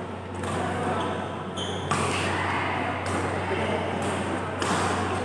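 Badminton rally in a sports hall: a sharp racket hit on the shuttlecock about two seconds in, just after a brief high squeak, over background chatter and a steady low hum.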